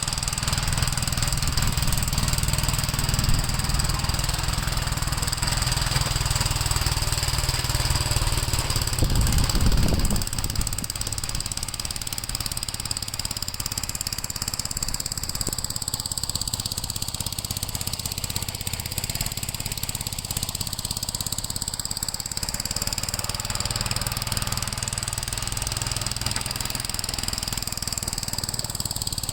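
Gravely walk-behind tractor's engine running steadily, swelling briefly louder about ten seconds in and then settling to a lower, even level.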